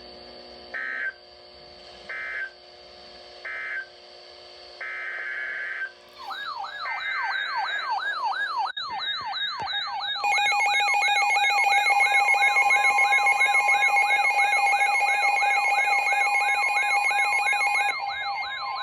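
Emergency Alert System tones. First come three short end-of-message data bursts, then three one-second SAME header data bursts. About ten seconds in the loud steady two-tone attention signal starts and holds for about eight seconds. From about six seconds in, a fast repeating rising electronic siren sweep plays over the tones.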